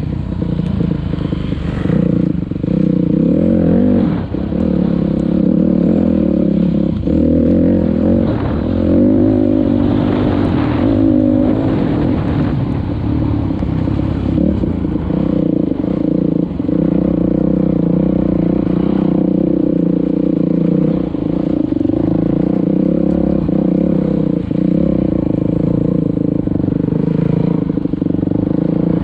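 Dirt bike engine running under way, its pitch rising and easing with the throttle, with occasional knocks and clatter from riding over rough ground. The engine runs strongly, which the rider puts down to a freshly changed spark plug.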